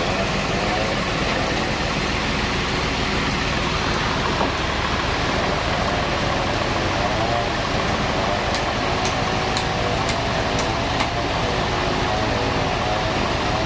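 Band sawmill running steadily, with a wavering tone in its noise and a quick run of sharp ticks about two-thirds of the way in.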